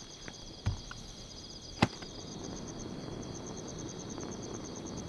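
Crickets chirping steadily at night, with two sharp clicks, the louder one about two seconds in.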